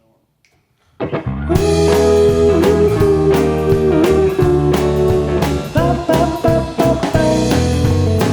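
A rock band kicks into a song after about a second of near silence: guitar, bass and drums come in together. A guitar melody bends between notes over a steady bass line and a regular drum beat.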